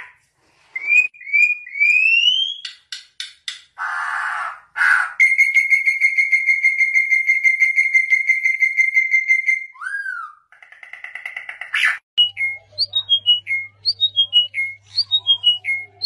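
Two songbirds whistling and calling, one after the other. The first gives rising whistled notes and clicks, then one long pulsing whistle held for about five seconds and a short buzzy phrase. After a break about 12 s in, a second bird repeats a falling whistled note about twice a second over a steady low hum.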